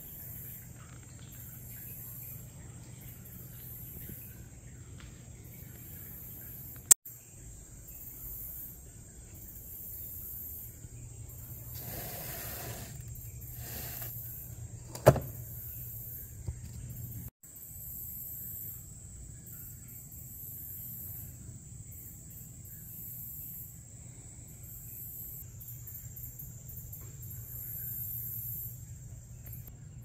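Steady low hum with a faint, high pulsing chirping, like insects, throughout. Midway a cardboard seasons-wheel exhibit is turned by hand: a short scraping rustle, then a sharp click.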